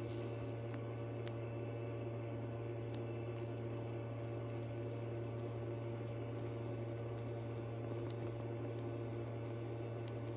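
Steady low electrical hum with fainter steady tones above it, and a few faint, scattered small clicks.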